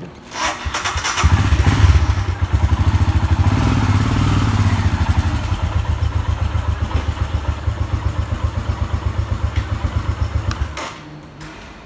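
Motorcycle engine catching about a second in and running with a quick, even low pulse while the bike moves a short way forward, then cutting off suddenly near the end.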